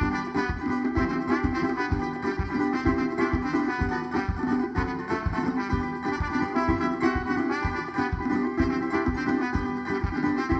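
Instrumental passage of a Maranhão drum-led band: drums keep a fast, steady beat under sustained melody instruments, with no singing.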